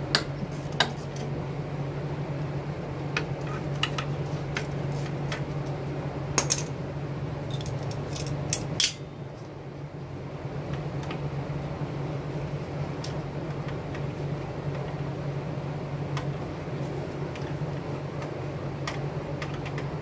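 Scattered sharp metal clinks and clicks as gloved hands work the shoes, springs and wheel cylinder of a drum brake, most of them in the first half, over a steady low hum.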